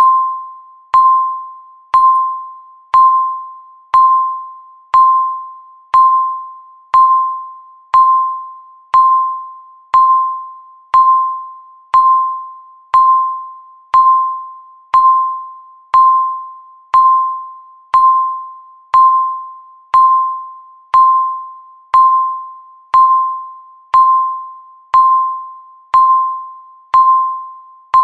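Countdown timer beeping once a second: a short electronic tone of one pitch with a sharp start that fades quickly, repeating evenly.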